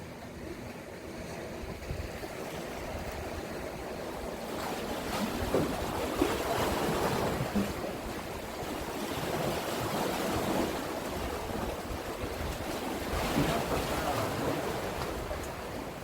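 Sea waves washing against the concrete tetrapods of a seawall, with strong wind buffeting the microphone; the noise swells and falls in a few surges.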